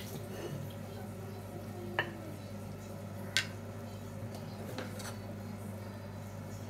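A metal spoon stirring and scraping in a small stainless-steel saucepan, with sharp metal-on-metal clinks about two seconds in, the loudest at about three and a half seconds, and a softer one near five seconds, over a steady low hum.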